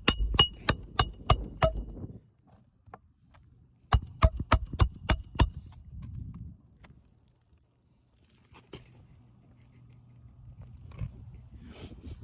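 Hammer driving roofing nails through an asphalt shingle: two quick runs of ringing metallic strikes, about four a second. The first run ends about two seconds in, and the second lasts from about four to five and a half seconds.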